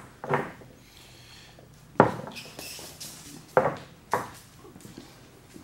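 Metal masonry hand tools being set down on a wooden workbench: four knocks and clinks, the loudest about two seconds in.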